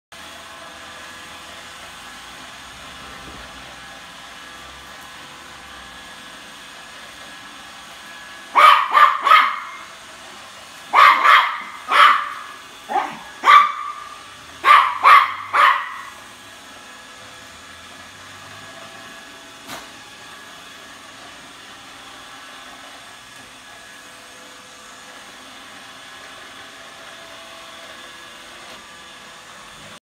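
Toy poodle barking at a Roomba robot vacuum: about a dozen sharp barks in clusters of two or three, starting about a third of the way in and stopping a little past halfway. Under the barks the robot vacuum runs with a steady hum.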